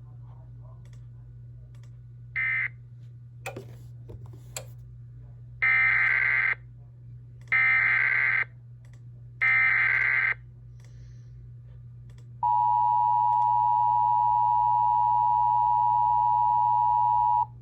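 Emergency Alert System SAME header: three loud bursts of warbling data tones, each about a second long and about two seconds apart, preceded by a short data chirp and a few clicks. Then a steady EAS attention tone sounds for about five seconds and cuts off sharply, announcing a severe thunderstorm warning. A low hum runs underneath.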